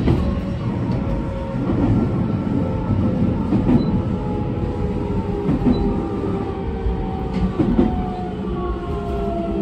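Running sound of a JR Shikoku 6000 series train: its Toshiba GTO-VVVF inverter whines in several tones that slowly fall in pitch as the train slows into a station, with occasional clicks of the wheels over rail joints.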